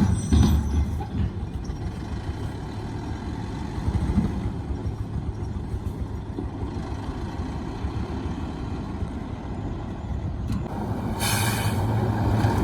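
Heavy construction diesel engine running steadily with a low rumble. There is a short loud burst of noise at the start and a brief hiss about eleven seconds in.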